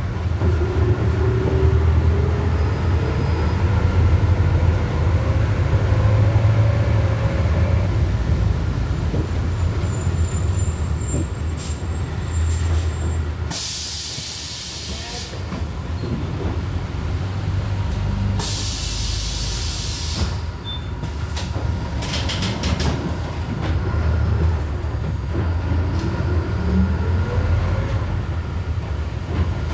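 Volksbus 17.230 OD bus under way, its engine droning under a gearbox whine that rises in pitch as the bus picks up speed. Around the middle come two loud hisses of compressed air from the bus's pneumatic system, a few seconds apart, followed by a few quick clicks.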